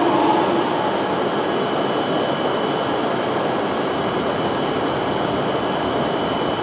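Shinkansen train running along the platform, a steady rushing noise with a faint high whine.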